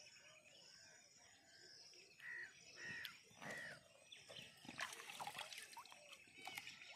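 Faint outdoor sounds: a bird calls three times in quick succession, each call dropping at its end, then light clicking and crackling near the end.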